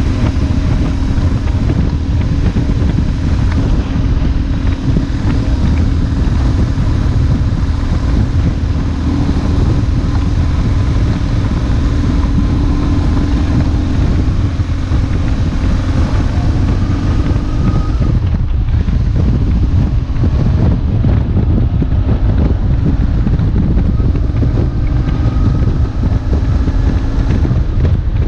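BMW R1150GS's boxer twin engine running steadily under way, heavily buffeted by wind on the microphone.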